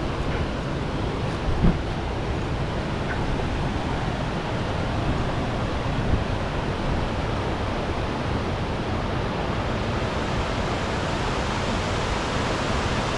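A large waterfall's water rushing in a steady noise that is heavy in the low end. One brief knock comes about a second and a half in.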